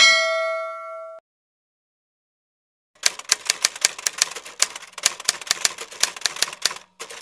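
A bell-like ding rings at the start and cuts off about a second in. Two seconds later comes a rapid run of typewriter key clacks, with a short break near the end before more clacks.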